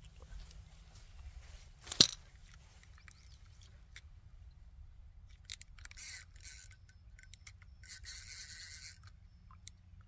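Fishing reel working in short spells of about a second each while a hooked fish is played in, with one sharp knock about two seconds in.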